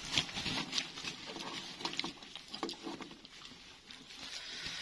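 Fingers mixing and squeezing cooked rice with sambal and vegetables, eaten by hand: soft, wet squishing with many small, irregular sticky clicks.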